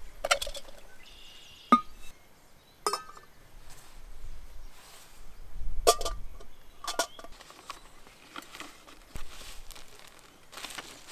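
A metal camp mug and an insulated tumbler are set down on a wooden picnic table and ceramic pour-over drippers are placed on them, making about five sharp clinks and knocks over the first seven seconds. Softer rustling of paper filters and a plastic zip bag follows near the end.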